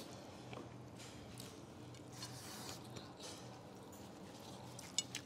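Faint sounds of people eating rice and curry with their hands: soft squishes of food and chewing, with a few small clicks and one sharper click near the end, over a steady low room hum.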